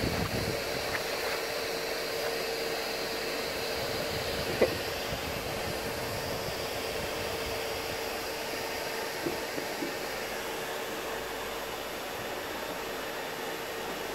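Vacuum cleaner running steadily: a constant rushing whoosh with a steady hum. A single sharp click about four and a half seconds in, and a few faint ticks later on.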